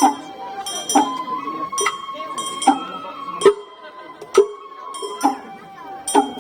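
Sawara-bayashi float music: a bamboo flute holds and steps between notes over drum and gong strikes, about one strike a second.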